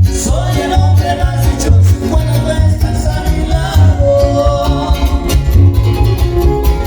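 Loud Latin music with a heavy repeating bass beat, plucked string instruments and a gliding melody line, played over a sound system.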